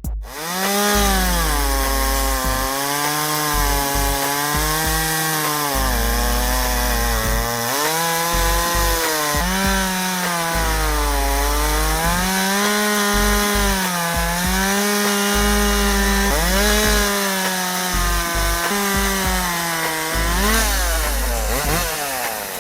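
Ryobi RCS5145B 45 cc two-stroke chainsaw cutting wood. The engine note dips as the chain loads up in the cut and rises again, repeating every couple of seconds.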